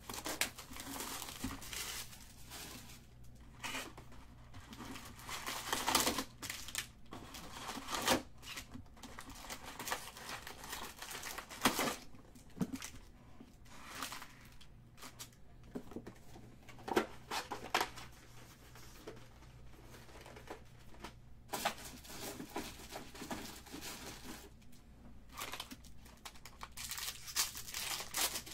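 Wrappers of 2019 Topps Series 2 baseball card packs being torn open and crinkled by hand: an irregular run of crackling rustles broken by sharp clicks.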